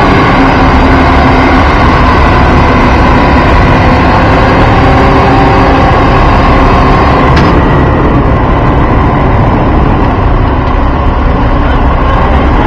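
A heavy engine runs loudly and steadily at a constant speed, with a light click about seven seconds in.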